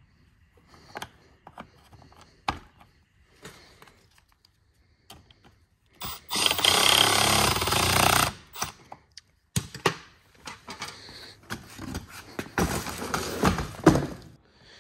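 Cordless impact driver hammering a bolt into a truck seat's frame for about two seconds, partway through. Scattered clicks and knocks of parts being handled come before and after.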